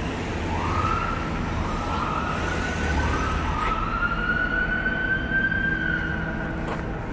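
Police car siren giving three short rising whoops, then a longer wail that climbs slowly and stops near the end, over a low rumble of traffic.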